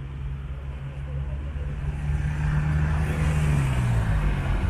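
A motor vehicle's engine running close by as a steady low hum, getting louder over the first couple of seconds. Its pitch dips slightly near the end.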